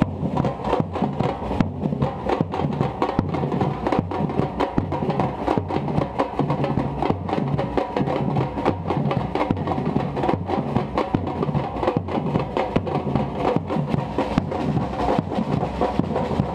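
Afro-Brazilian samba-reggae drum ensemble playing together: large surdo bass drums struck with mallets under smaller drums played with sticks, in a dense, steady rhythm.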